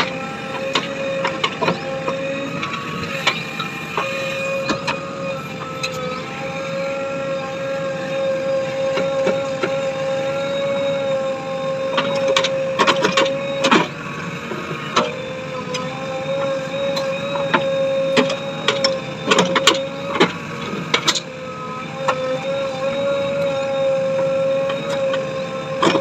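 JCB 3DX backhoe loader's diesel engine and hydraulics running with a steady whine as the backhoe arm digs and lifts soil. Clusters of sharp knocks come about halfway through and again a few seconds later.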